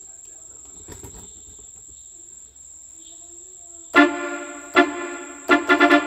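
Yamaha PSR-F50 electronic keyboard playing a musical bus-horn tune in a horn-like voice. A loud held chord enters about four seconds in, a second one follows, and quick repeated horn notes come near the end. Before that there is only a faint steady high whine.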